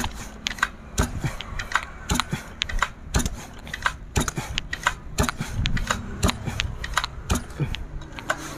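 STIHL 651 chainsaw, freshly fitted with a new cylinder and piston, being pull-started without catching: irregular clicks and knocks a few times a second from the recoil starter and handling, and no engine running. Its fresh, high compression makes the starter cord very heavy to pull.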